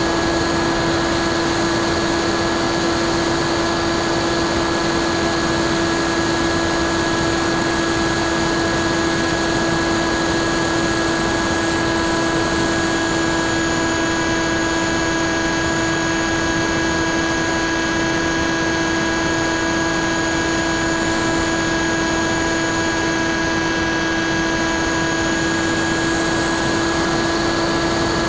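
Bixler 2 RC plane's electric brushless outrunner motor (NTM 35-30 1400kv) spinning a 9x6 propeller at steady throttle in flight: a steady, even whine over a rush of passing air, heard from a camera mounted on the plane.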